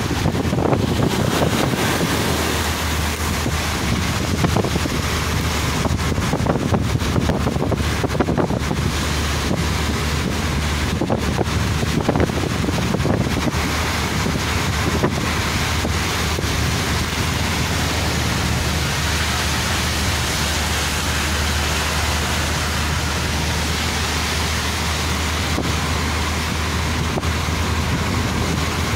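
Steady road noise of a car driving on a highway, with a constant low drone under it. Wind buffets the microphone in gusts during the first half, then settles.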